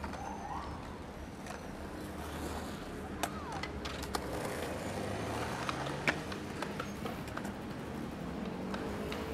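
City street ambience: skateboard wheels rolling over paving stones over a low traffic hum, with a few sharp clacks of boards, the loudest about six seconds in.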